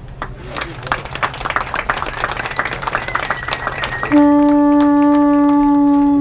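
Audience clapping, then a loud blast on a conch shell (pū) about four seconds in, held steady on one pitch for about two seconds.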